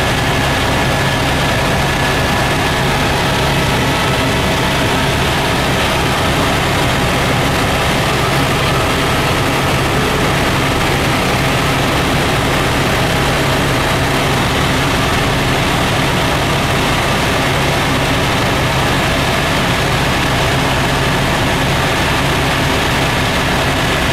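Helicopter in steady flight heard from inside the cabin: the engine and rotor make a loud, even drone with a few steady tones through it.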